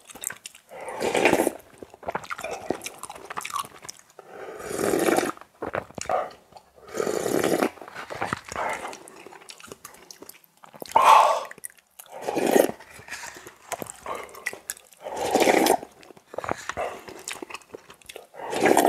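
A person slurping cup ramen noodles and broth from a spoon, about seven loud slurps a couple of seconds apart, with chewing between.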